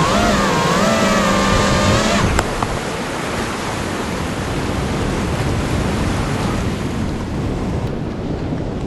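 FPV quadcopter's electric motors whining, the pitch rising and falling with the throttle, then cutting off abruptly with a click about two seconds in. After that, only a steady rush of wind noise.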